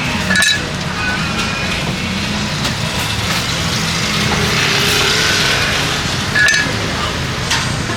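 Busy street ambience: a steady low hum of traffic or engines, with two short clinks, one about half a second in and one near six and a half seconds.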